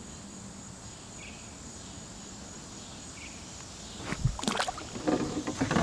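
Steady high-pitched drone of crickets and other insects. About four seconds in comes a sudden low splash-like thump with a few sharp knocks as a fish is tossed back into the water, then rustling handling noise.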